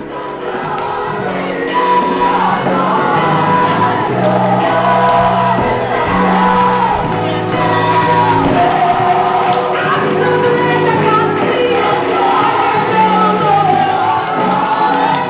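Gospel music: singing over sustained held chords, with shouts and whoops from the congregation.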